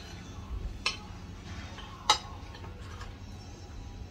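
Spoons and forks clinking against plates as two people eat: two sharp clinks, about one second in and about two seconds in, the second louder.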